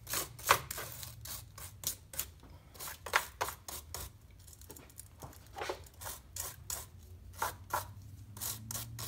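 Wire brush scrubbing the stripped ends of battery cables to clean them: a series of short, quick scraping strokes, with a pause of a second or so in the middle.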